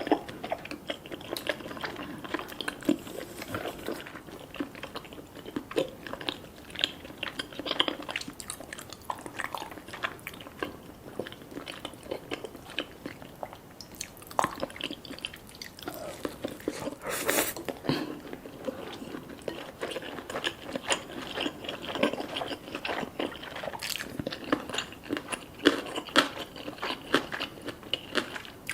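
A person eating right at the microphone: a continuous run of chewing, biting and wet mouth clicks from spicy fish cake and ham gimbap. One sharper bite sound comes a little past halfway.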